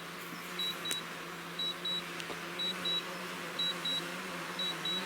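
A drone's remote controller sounding a high double beep about once a second, over the steady hum of the quadcopter's propellers as it flies back in return-to-home mode.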